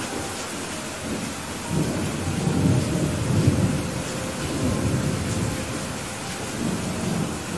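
Heavy rain falling steadily, with low rolling thunder swelling about two seconds in and rumbling for several seconds, then again briefly near the end.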